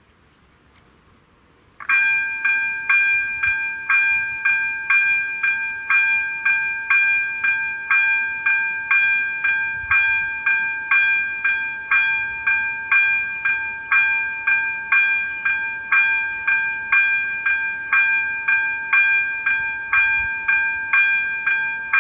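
Electronic level-crossing bell (ZV-02) switches on about two seconds in and rings steadily at about two strokes a second, the crossing's warning that a train is approaching.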